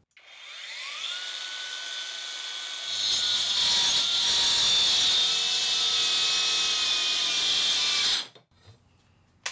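Cheap cordless angle grinder fitted with a toothed saw blade, run on its high setting, spinning up with a rising whine. About three seconds in it bites into a 2x4: the sound gets louder and rougher and the motor's pitch sags under the load. It cuts out suddenly near the end, the weak grinder bogging down in the wood, which the owner describes as starting to cut and then almost dying out.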